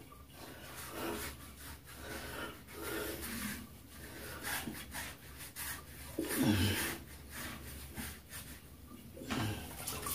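OmniShaver razor blades scraping over a lathered scalp in repeated back-and-forth strokes.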